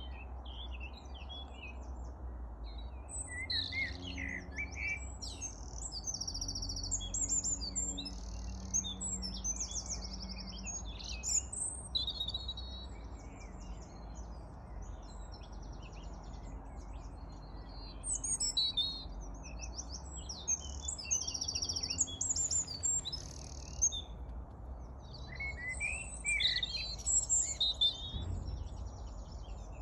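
Several songbirds chirping and singing, short calls and rapid trills overlapping one another, busiest near the start and near the end, over a steady low rumble.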